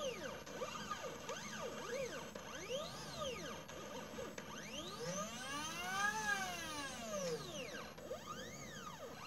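Stepper motors of a mini CNC laser engraver whining as the laser head moves across the work. Each move is a whine that rises and then falls in pitch. There are several short quick ones, then a longer, louder sweep from about five to seven seconds in, then another short one.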